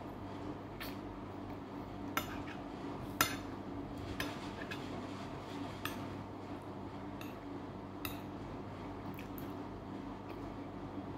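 Metal spoon and fork clinking and scraping against a plate while eating: scattered light clinks, the sharpest about three seconds in. A steady low hum runs underneath.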